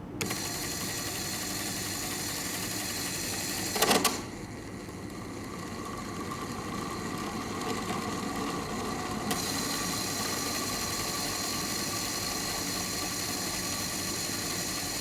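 Small electric motor of a motorized fridge spinner running steadily, with a short louder burst of noise about four seconds in.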